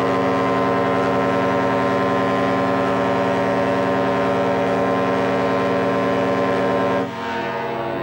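SS Norway's ship whistle sounding one long, steady blast of several tones together, cutting off about seven seconds in, followed by a fainter lingering tone.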